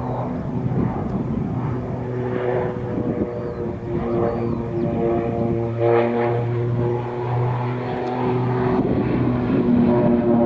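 OV-10 Bronco's twin Garrett T76 turboprop engines and propellers droning steadily in a display pass, growing louder near the end as the plane banks overhead.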